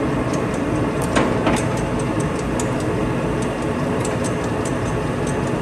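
Warner & Swasey 5A saddle turret lathe running under power, its spindle turning the large three-jaw chuck: a steady mechanical run of motor and gearing with many light irregular ticks, and a couple of sharper knocks about a second in.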